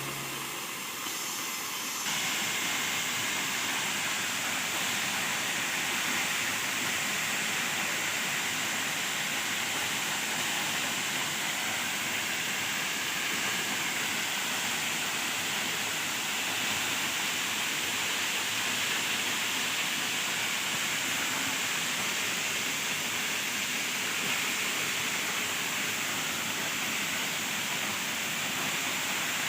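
Steady rushing hiss of a waterfall, a little louder from about two seconds in.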